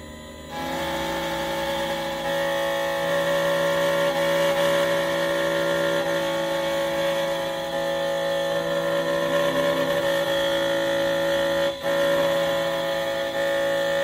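Xhorse Condor XC-Mini Plus key cutting machine's cutter spindle starting about half a second in and running with a steady whine as it mills the second side of a high-security double-sided key, with a momentary dip near the end.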